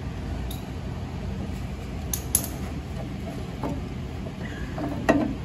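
A few light clicks and one sharper knock about five seconds in as a block of scrap wood is set in place against the blade inside the chipper's steel housing, over a steady low hum.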